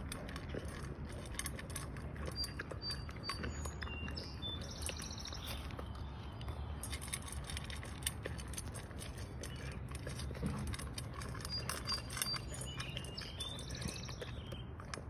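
A dog chewing dry kibble from a metal bowl: a steady run of many short crunches and clicks. A bird chirps and trills twice in the background.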